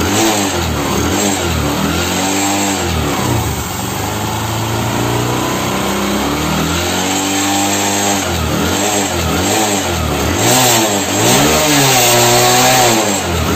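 Bajaj Discover motorcycle's single-cylinder four-stroke engine running and being revved up and down over and over by the throttle. It is freshly rebuilt with a new piston and rings and runs without the knocking that the seized piston used to make.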